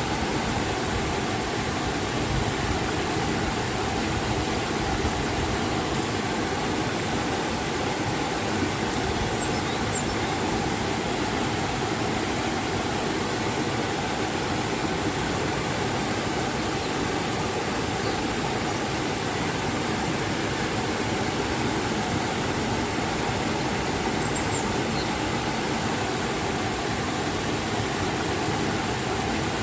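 River and waterfall rushing, a steady unbroken noise of moving water.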